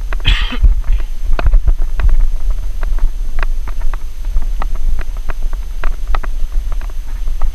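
Bicycle rattling and clattering over a rough, rutted dirt trail: irregular knocks and clicks, several a second, over a steady low rumble of wind on the microphone. A short hiss comes about half a second in.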